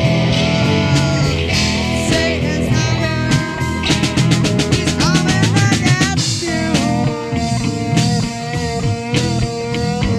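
Freestyle live band jam with a drum kit and guitar playing together. About four seconds in there is a fast run of drum strokes with sliding notes over it, and then the groove carries on.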